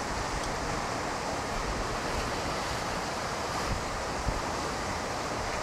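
Ocean surf washing steadily against a rocky shore, with wind buffeting the microphone in a few low thumps about four seconds in.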